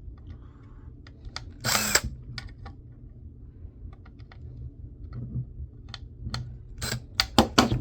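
Tool work on a laptop hard drive: sharp clicks and taps of a screwdriver and small metal parts against the casing, with a short loud rasp about two seconds in and a quick cluster of clicks near the end.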